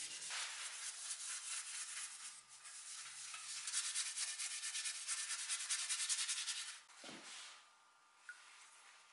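A paintbrush's bristles scrubbing rapidly back and forth over wood, working a dark finish in: a quick, even scratching made of many short strokes. It stops about seven seconds in, and only faint handling sounds are left.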